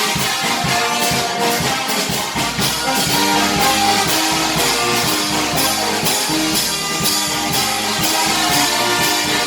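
Music with guitar and drums over a steady beat.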